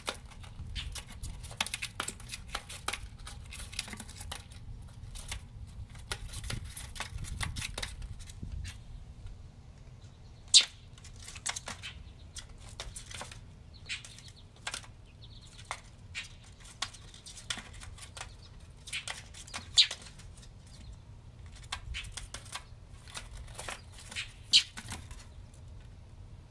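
A mockingbird chick fluttering its wings and scrabbling with its claws against the house siding: a long run of quick, uneven scratches and light taps, with a few sharper clicks standing out about ten seconds in, around twenty seconds and near the end.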